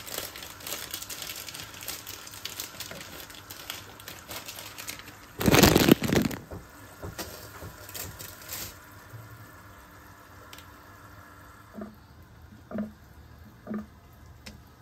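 Pan of salted, oiled water heating on a gas stove, crackling and hissing as it nears the boil. About five and a half seconds in, a loud rush of noise lasts roughly a second, after which the crackle dies down.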